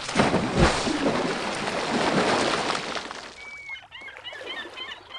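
Outro sound effect: a loud rush of noise with a thud just under a second in, fading after about three seconds into quick chirping bird calls that die away near the end.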